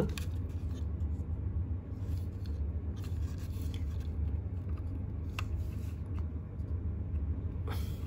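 Small handling sounds of a plastic keypad panel and a wire harness being moved and fitted, rubbing with a few faint clicks, over a steady low rumble.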